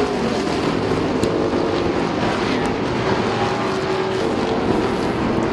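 A field of street stock race cars running at racing speed, several V8 engines at high throttle blending into one steady, loud engine drone.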